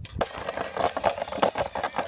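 Rapid, irregular clicks and rustles from handling a fish trap holding a freshly caught loach.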